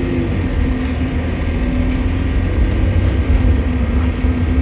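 Bus engine running steadily with a low rumble, a steady drone and a faint high whistle; the noise is taken for a leaking turbocharger.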